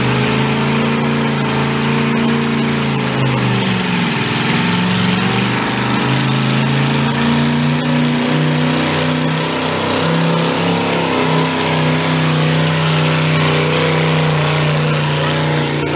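Small antique pulling tractor's gas engine running hard under load as it drags a weight-transfer sled. The engine pitch sags briefly about four seconds in, then climbs and holds steady and high.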